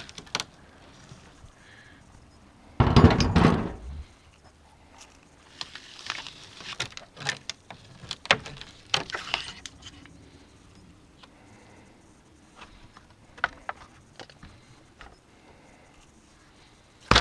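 Knocks and clatter of door hardware and tools being handled: one heavy thump about three seconds in, then scattered clicks, taps and scrapes.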